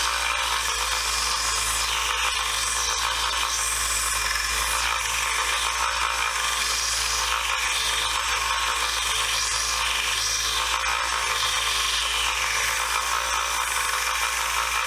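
A power tool running steadily as it abrades the screwdrivers' old finish, a continuous hissing grind over a low motor hum.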